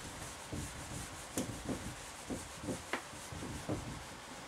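Whiteboard eraser wiping marker off a whiteboard in a quick series of short rubbing strokes.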